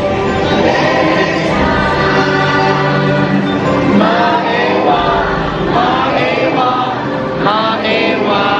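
Choir of several voices singing together, loud and steady.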